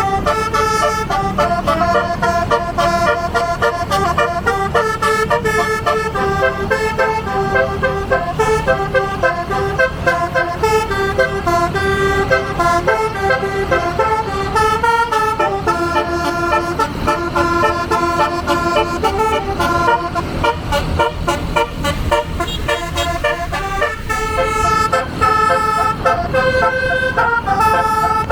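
A 24-note basuri musical air horn on a bus playing a melody: several horn tones sound together and step from note to note every fraction of a second, over the bus's running engine.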